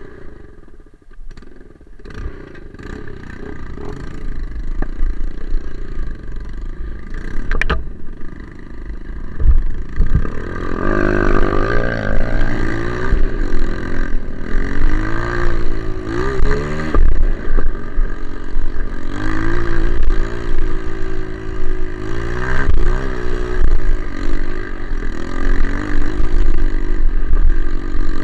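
Single-cylinder four-stroke trail motorcycle engine, quieter at first, then running hard from about ten seconds in with its pitch rising and falling again and again as the throttle is opened and closed.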